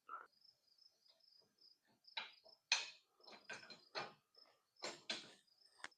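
A cricket chirping steadily in a high, pulsing trill, with several light knocks and clunks of objects being set down or handled.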